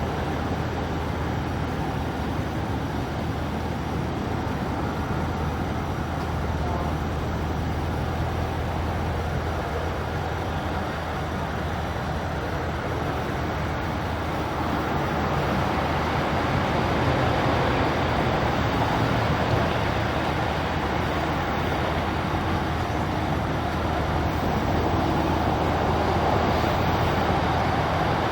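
Steady road-traffic noise with a low engine hum, getting a little louder about halfway through.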